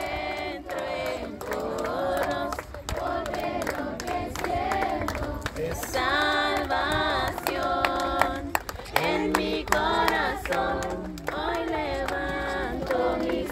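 A group of people singing a hymn together, with hand clapping.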